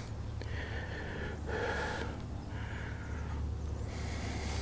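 A man's soft breathing close to the microphone, several breaths in and out, over a low steady rumble.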